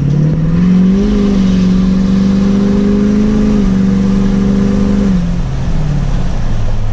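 Tuned Ford F-250 Super Duty diesel V8, heard from inside the cab, accelerating hard under full throttle. The engine note rises in the first second, holds steady under load, steps down slightly about three and a half seconds in, then falls away about five seconds in.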